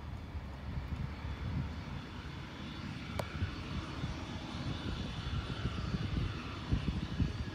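Cessna Citation Ultra's twin Pratt & Whitney Canada JT15D turbofans running at high power as the jet starts its takeoff roll: a steady low rumble with a thin turbine whine, growing slightly louder.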